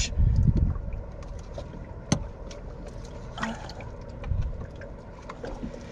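Putty knife working epoxy putty into a ground-out patch of a ferro-cement hull: faint scraping and small ticks, with a low rumble that dies away within the first second and a single sharp knock about two seconds in.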